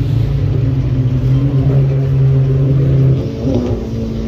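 Motorboat engine running steadily, heard from aboard with a low rumble beneath a steady drone. About three seconds in the engine's low drone drops out and the sound eases a little, as if the throttle is backed off.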